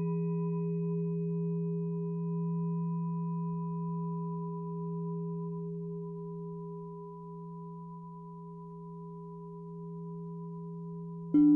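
Sustained pure electronic tones, a low hum with several higher steady tones above it, slowly fading. Near the end a new, louder set of tones sets in suddenly.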